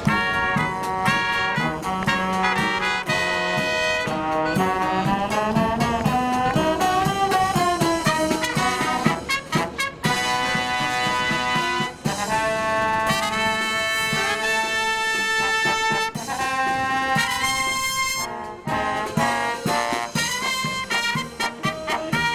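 Marching brass band playing live: trumpets and trombones carry a lively melody over a steady drum beat.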